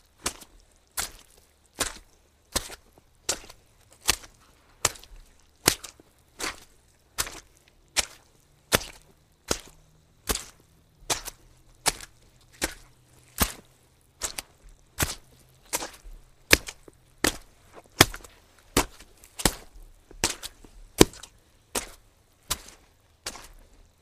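Soggy footsteps walking at a steady pace, about one step every 0.8 seconds, each a short wet impact often with a smaller second hit right after.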